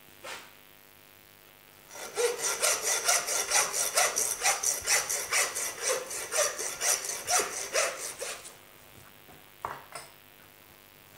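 Hand-held butcher's bone saw cutting through the thick neck of a ram carcass: about six seconds of quick, even rasping strokes, starting about two seconds in.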